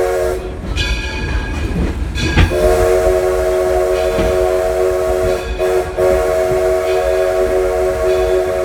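Steam whistle of the Edison steam locomotive blowing a chord of several notes. The end of one blast comes at the very start, then after a pause of about two seconds two long blasts follow, split by a brief break. The train's low running rumble continues underneath.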